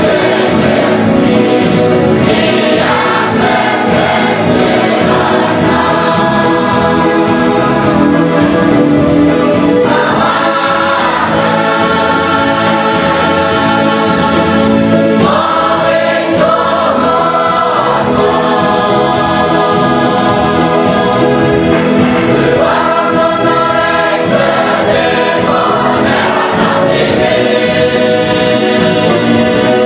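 A church choir of women and girls singing a hymn together, holding each chord for a second or two before moving to the next.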